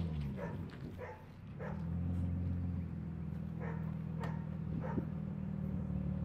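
A car engine idling steadily while a dog barks several times, in short separate barks spread across the few seconds.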